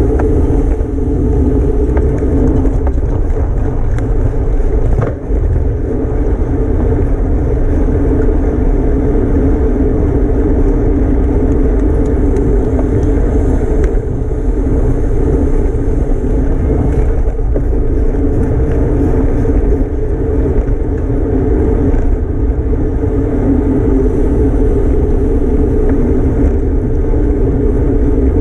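Loud, steady wind rush over a bike-mounted camera's microphone while riding at racing speed, with a low drone underneath.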